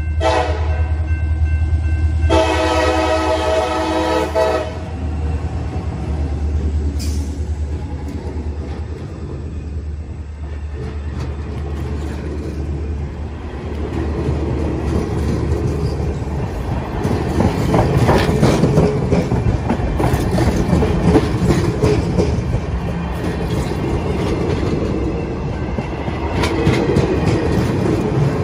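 Diesel locomotive horn: a blast that ends just after the start, then a longer blast of about two seconds, over the low rumble of the diesel engines as the locomotives approach and pass. About halfway through, the passenger cars take over, rolling by with a dense clatter of wheels clicking over the rail joints.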